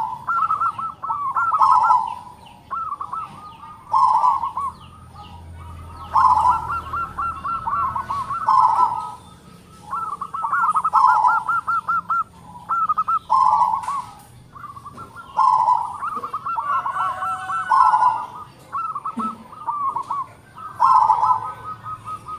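Zebra dove (local perkutut) cooing over and over: each phrase is a run of quick rolling notes that ends in a lower coo, repeating about every two seconds.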